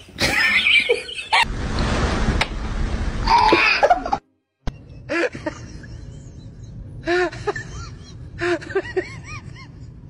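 A person laughing in short repeated bursts through the second half. Before that is a loud, even rushing noise that breaks off about four seconds in.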